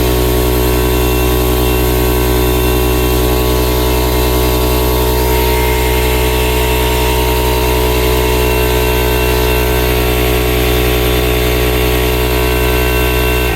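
Stanley 24-litre 8-bar oil-free air compressor running loud and steady as it pumps up its tank, then cutting out right at the end when it reaches cut-out pressure.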